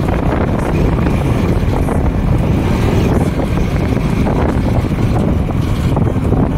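Wind buffeting the microphone of a moving vehicle, a steady loud rush with road and engine noise underneath.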